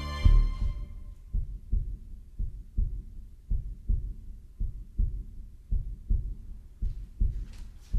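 Heartbeat sound effect: low, muffled double thumps in a steady rhythm of roughly 85 beats a minute. A high ringing tone fades out in the first second.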